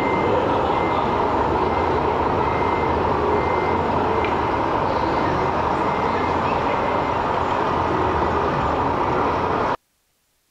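A repeated high electronic reversing beep, like the reverse-warning sound of an RC construction model, over a steady din of machine and hall noise. The sound cuts off suddenly near the end.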